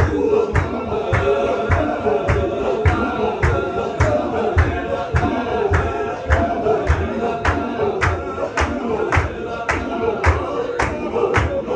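Chechen Sufi zikr: a circle of men chanting together over a steady beat of sharp strikes, about three a second.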